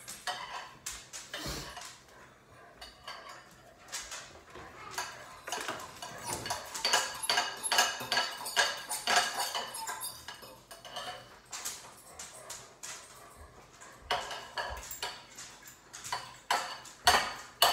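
A utensil clinking and scraping irregularly against a bowl as a toddler stirs raw eggs, in many small ringing taps, sparser a couple of seconds in.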